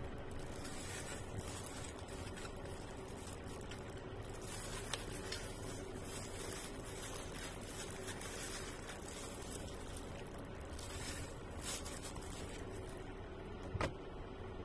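Eating by hand in a plastic food glove: the glove crinkling as rice and food are picked from a styrofoam box, and chewing. Faint, over a steady background hiss, with a few small clicks and a sharper one near the end.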